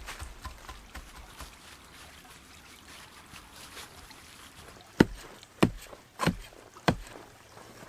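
Faint rustling and small clicks, then four loud knocks in a steady rhythm about two-thirds of a second apart, starting about five seconds in.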